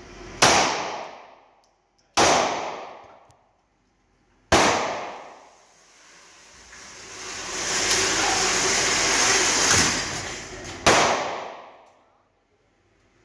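Three CZ P-10 C pistol shots about two seconds apart, each ringing out in the concrete indoor range. Then the motorised target carrier runs for several seconds as the target is brought back, with one more sharp bang near the end.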